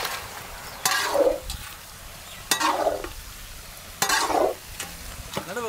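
Food being stirred in a large cooking pot: three scraping strokes about a second and a half apart, each sliding down in pitch, over a steady sizzling hiss.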